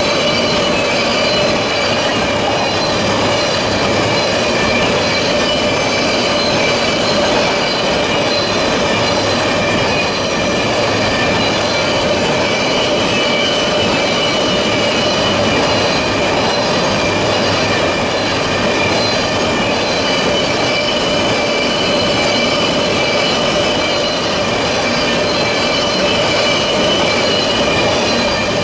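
Freight train of tank cars rolling past at close range: a steady rumble of steel wheels on rail, with several steady, high squealing tones from the wheels running over it.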